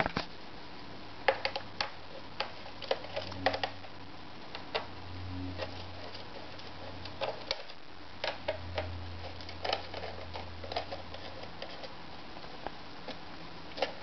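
Small screwdriver clicking and ticking irregularly on the screws of a Dell XPS L502x laptop's bottom access panel as they are backed out, with a faint low hum under parts of it.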